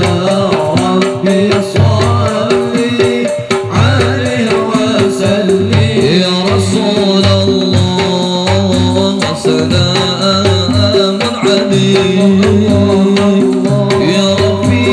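A man singing sholawat, a devotional song in praise of the Prophet, into a microphone. He is accompanied by a steady, dense rhythm of hand-played percussion.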